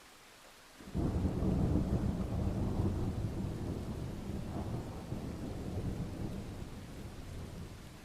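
A peal of thunder: a rumble that starts suddenly about a second in over a faint hiss of rain, then slowly dies away over several seconds.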